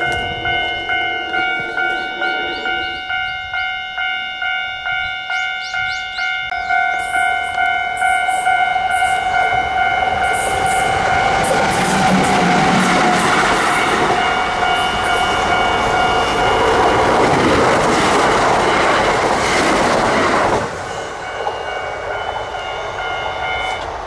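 Japanese level-crossing warning bell ringing in quick, even electronic dings, about two a second. Then a Kintetsu electric train passes over the crossing: its noise builds for several seconds and stays loud before cutting off sharply about 20 seconds in. The crossing bell tones are heard again faintly near the end.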